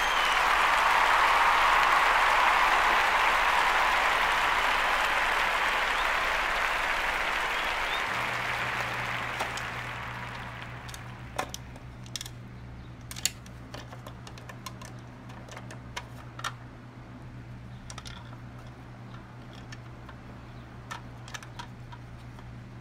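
Applause that slowly fades away over the first ten seconds. It is followed by a dog nosing and pawing a plastic treat-puzzle toy after kibble, giving scattered sharp plastic clicks and knocks over a steady low hum.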